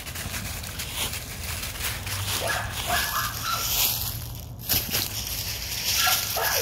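American Pit Bull Terrier puppy giving short high whines and yips in two brief bouts, about midway and near the end, while he plays with a ball. Dry fallen leaves crunch and rustle throughout under paws and feet.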